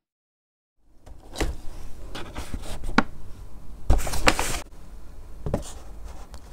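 Paper shopping bag rustling and crinkling as it is handled, starting about a second in, with a few sharp taps and knocks of a plastic cup and a cardboard box being set on a table.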